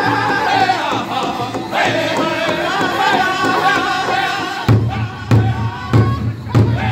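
Powwow drum group singing a men's chicken dance song in unison, in high voices, while beating a large hide powwow drum with drumsticks. In the last two seconds the drum comes in with four loud, hard strokes about 0.6 s apart.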